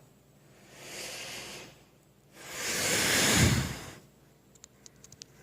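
Two breathy hisses like hard exhalations, a short one about a second in and a longer, louder one in the middle, followed by a few faint clicks near the end.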